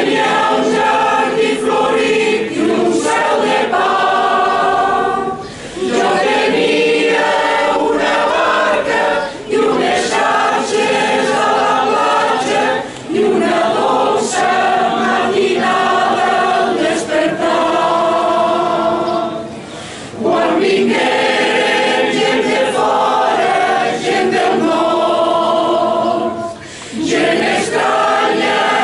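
Mixed choir of men and women singing a Catalan Easter caramelles song in phrases, with brief breaks between them.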